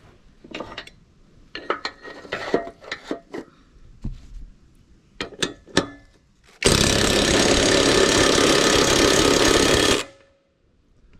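Scattered metal clicks and knocks of tools on a mower blade, then about three seconds of a loud, steady power tool run that cuts off sharply: tightening the mower blade bolt.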